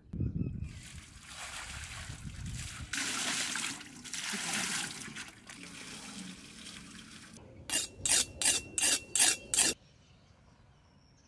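Water poured from a brass pot splashing over a skinned mutton carcass into a large metal basin. This is followed by about seven quick scraping strokes of a steel knife being sharpened on a stone, with a thin metallic ring.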